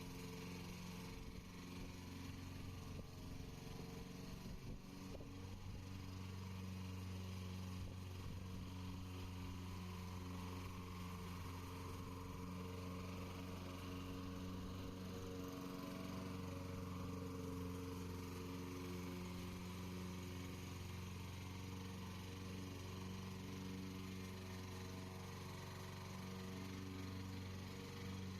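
Radio-controlled lawn mower's engine running steadily while mowing.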